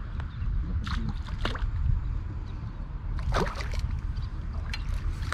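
Water splashing as a hooked carp thrashes in the shallows and is scooped into a landing net. The splashes come in short bursts, twice about a second in and most strongly just past three seconds, over a steady low rumble.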